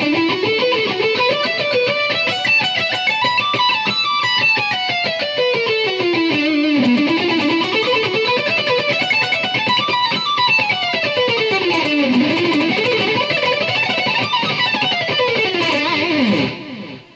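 Ibanez 24-fret electric guitar playing a fast pentatonic lead lick with borrowed blues, Dorian and chromatic notes. The rapid notes climb high up the neck and come back down about three times, then stop just before the end.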